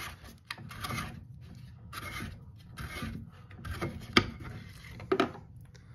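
The plastic drain-pump filter cap of an LG front-load washer being unscrewed by hand, rubbing and scraping in its housing in several short twists. Two sharp clicks come near the end as it comes loose.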